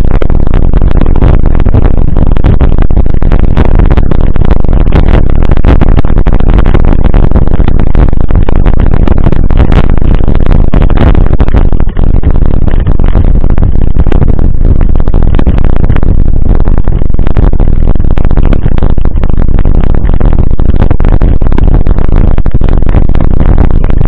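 Wind buffeting and rattling of a handlebar-mounted camera on a mountain bike riding a rough dirt road, so loud that it distorts, with irregular knocks from the bumps.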